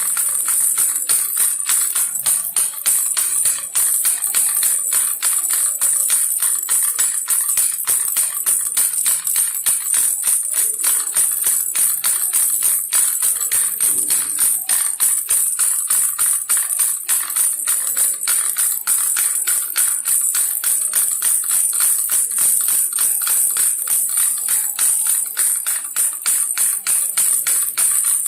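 Baby rattle toy shaken continuously: a rapid, unbroken rattling of many small beads or pellets, bright and hissy, with no pauses.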